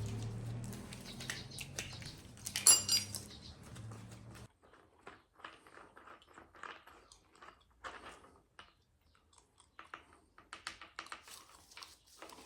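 Hand tools and metal fork parts being handled: scattered small clicks and taps, with one sharp ringing metal clink a little under three seconds in. A low hum runs underneath and stops abruptly about four and a half seconds in.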